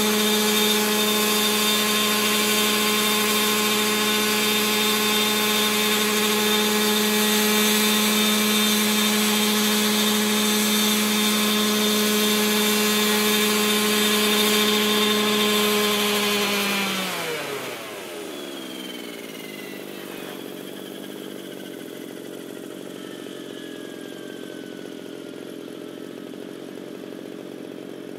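Two-stroke petrol engine of a T-Rex 700 gasser RC helicopter running steadily at high rpm. About two-thirds of the way in it is throttled back: its pitch falls sharply and it drops to a much quieter running sound, with faint falling whines as the rotor winds down.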